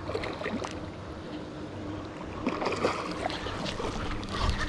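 Wind rushing over the microphone and water sloshing and splashing as a large hooked red tilapia thrashes at the surface close to the bank, with scattered small knocks.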